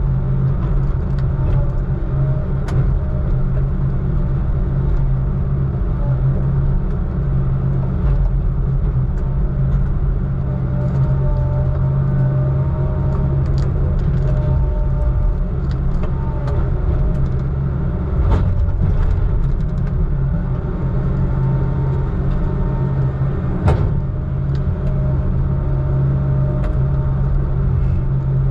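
Log truck's diesel engine running steadily with a low rumble, and a few sharp knocks or rattles over it.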